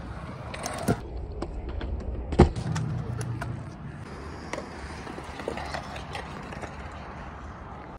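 Kick scooter wheels rolling on a concrete skate park surface, a steady rolling noise, with a small knock about a second in and a sharp clack about two and a half seconds in.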